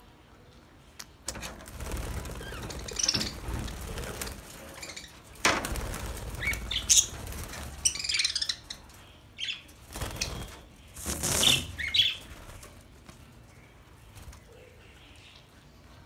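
Budgerigars fluttering in an aviary: several flurries of wing flapping, with short high chirps mixed in. The flapping dies down about three quarters of the way through.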